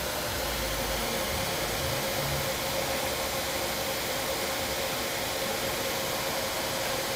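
Laser cutter running while cutting plywood: the air-assist compressor blowing air across the beam makes a steady hiss, with a constant mid-pitched hum.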